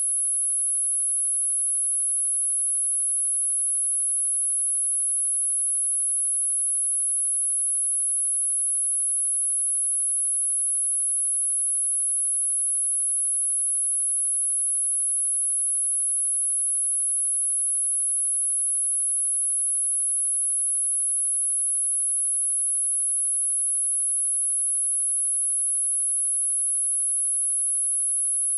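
A pure 10656 Hz sine-wave test tone, a steady high-pitched whistle held at one pitch and level throughout, played as a speaker test and speaker-cleaning tone.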